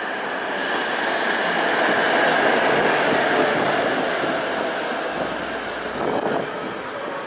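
A PCC streetcar rolling past on its rails, its running noise growing louder over the first couple of seconds and then fading as it moves away.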